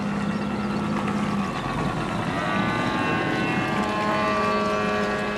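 Radio-controlled model aircraft engines in flight: a steady engine note, then from about two seconds in a higher, louder whine as a model comes closer, its pitch slowly falling.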